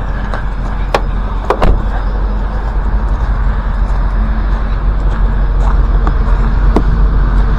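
A steady low rumble of a vehicle engine running, with a few sharp clicks on top, near the start and again near the end.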